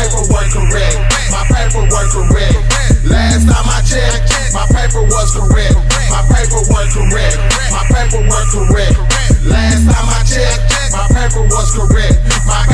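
Hip hop music: a trap beat with deep bass, the bass cutting out briefly twice.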